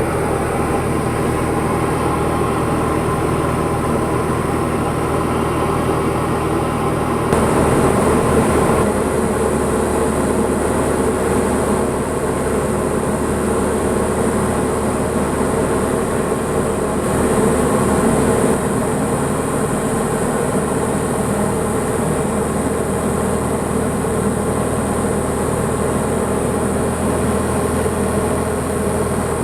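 Single-engine piston light aircraft, a Diamond DA40, heard from the cockpit: the engine and propeller drone steadily, briefly louder and fuller twice.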